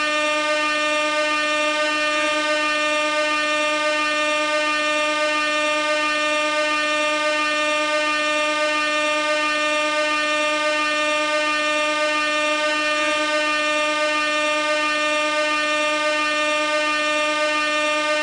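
Air horn sounding one long, steady note without a break.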